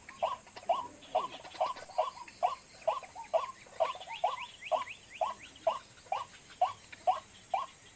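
White-breasted waterhen (ruak-ruak) calling: a monotonous run of short notes, about two a second. This is the call used to lure the birds. Fainter, higher-pitched notes sound above it.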